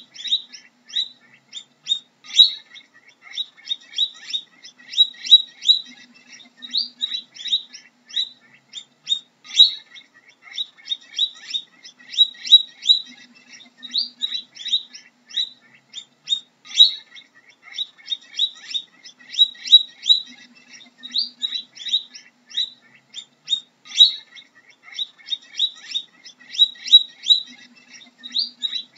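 Guinea pig squeaking: short, high-pitched squeaks, several a second, in an unbroken run.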